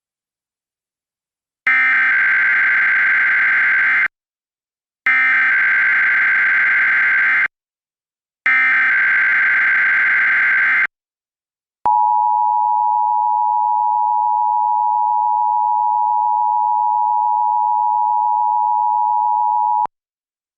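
Emergency Alert System SAME header: three bursts of digital data tones, each about two and a half seconds with a second's gap between them, then the EAS two-tone attention signal (853 and 960 Hz together), a steady tone held for about eight seconds that cuts off sharply. This sequence opens a coordinated Required Monthly Test of the alert system.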